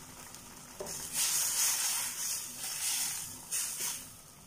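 Watery fish head curry gravy boiling hard in a steel pot, stirred with a wooden spoon: a bubbling hiss that starts with a light knock about a second in, swells, then fades near the end.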